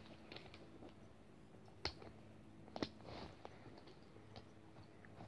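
Near silence with a few faint handling clicks, two sharper ones about two and three seconds in.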